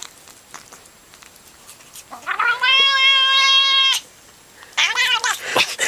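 A cat meowing twice: a long call held at one pitch for about two seconds, then a shorter call that rises and falls.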